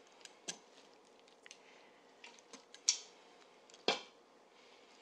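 Kitchen tongs clicking and tapping as seared chicken breasts are lifted from a frying pan and laid onto pasta in an Instant Pot. A few light clicks and soft taps, the two loudest about three and four seconds in.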